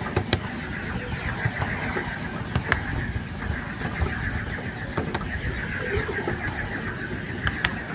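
7¼-inch gauge miniature railway train running along the track, a steady rumble of wheels and running gear with scattered sharp clicks, as over rail joints.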